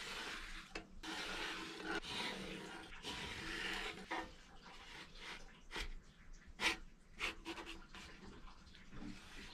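Faint scraping of a spatula rubbing across a griddle as it works under a pancake, followed by a few light clicks and taps over the last few seconds.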